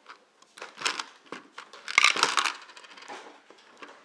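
Plastic LEGO bricks clicking as a hand works the slide of a LEGO candy dispenser, with small round candies rattling and clattering through it. The clatter comes in short bursts: a few clicks about a second in, the densest, loudest rattle about two seconds in, and a few more clicks near the end.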